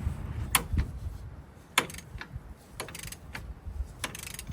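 Hand ratchet working the axle nut loose: sharp metallic clicks at irregular intervals about a second apart, with a short quick run of clicks near the end.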